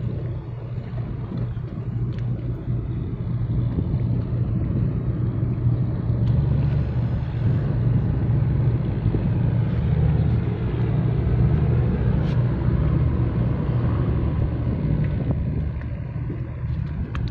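Deep, steady engine rumble of a large ship under way, growing louder through the middle and easing off near the end, with wind on the microphone.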